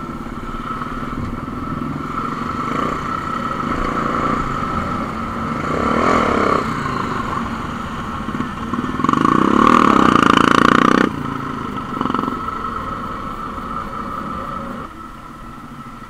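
Motorcycle engine running while riding. It gets louder and rises in pitch for about two seconds starting nine seconds in, then drops quieter near the end as the bike slows.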